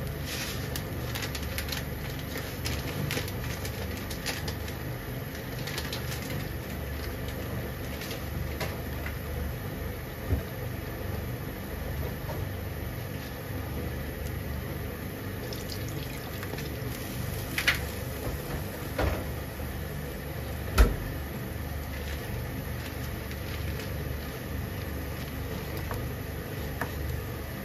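Water with bean sprouts simmering in a frying pan, bubbling and crackling steadily over a low steady rumble. A few sharp knocks come through, the loudest about two-thirds of the way in.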